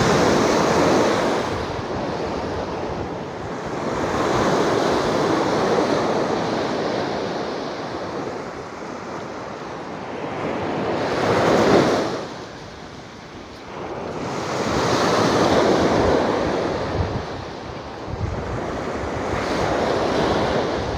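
Surf breaking on a sandy beach, the rush of each wave building and falling away every few seconds, with wind buffeting the microphone.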